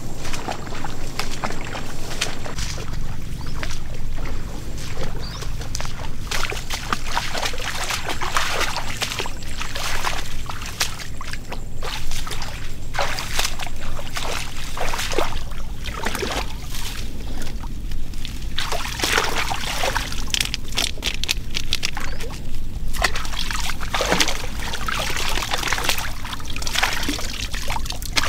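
Water sloshing and splashing in many short, irregular strokes over a steady low rumble.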